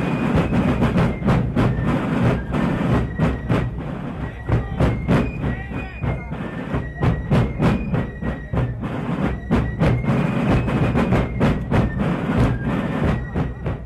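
Fife and drum music: high, thin fife notes over sharp drum strokes.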